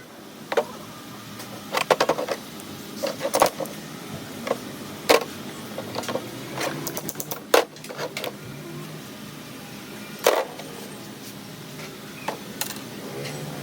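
Irregular sharp clicks and knocks of metal parts and tools being handled, such as an AC compressor being taken apart on the bench, over a steady low hum.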